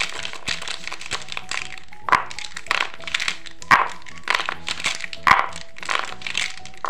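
A handful of plastic felt-tip marker pens clattering and rustling together as they are shuffled in the hands and laid out on paper, with a few sharper knocks of pens against each other and the table. Soft background music runs underneath.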